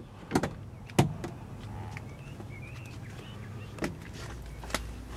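Front door and cab of a 2008 Ford F-150 pickup being handled as the door is swung open and the cab entered: a few sharp clicks and knocks, the sharpest about a second in, over a steady low hum.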